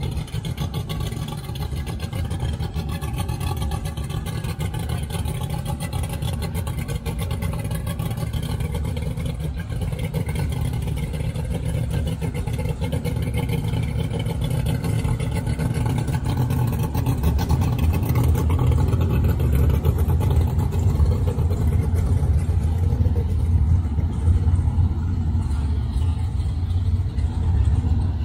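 Mercury outboard motor on a small race boat running at low speed, churning the water as the boat moves along the canal. A steady low rumble that grows louder from about halfway through.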